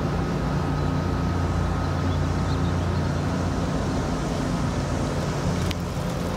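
Steady low background rumble of outdoor noise, with a faint steady high tone running through it and one brief click near the end.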